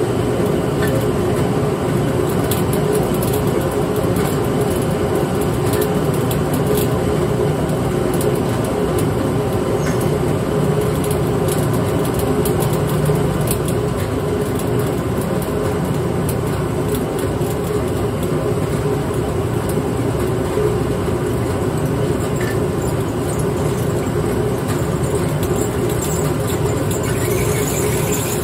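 Motor-driven malt mill running steadily, crushing the grain as it feeds down from the hopper: an even, continuous grinding drone.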